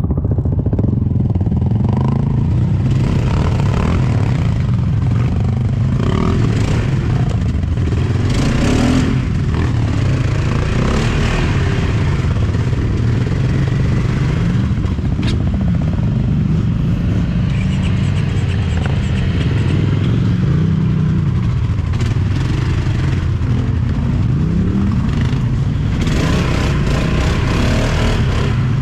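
Quad bike (ATV) engine running under way off-road, its pitch rising and falling with the throttle several times. A few sharp knocks and clattering sounds come from the machine over rough ground.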